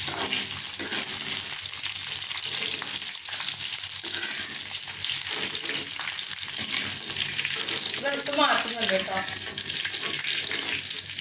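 Hot oil sizzling and spattering in a clay cooking pot as green chillies, curry leaves, garlic and ginger fry in it. The chillies are spitting oil and seeds.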